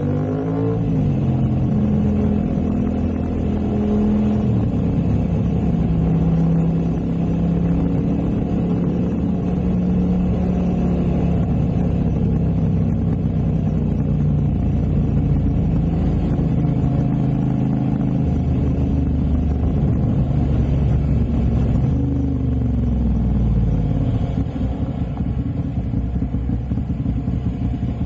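Ducati 696 Monster's air-cooled L-twin engine running. Its pitch drops near the start, then holds at a few steady engine speeds. About 22 seconds in the revs fall away, and the engine settles into a lumpy, uneven idle.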